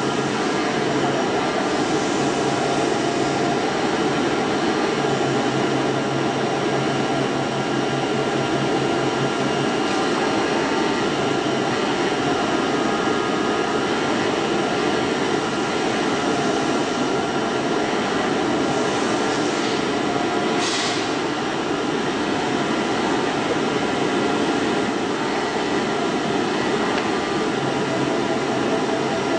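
DCZ70 flatbed cutting machine running while its oscillating-knife head cuts a sheet: a steady mechanical whir, with a low hum that comes and goes and a short hiss about two-thirds of the way through.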